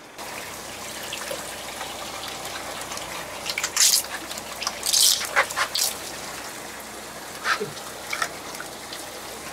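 Wet squelches, slaps and drips of a large rock octopus being handled on a boat deck and pushed into a mesh net bag, over a steady hiss. The sharp wet clicks bunch up about four to six seconds in, with a couple more a little later.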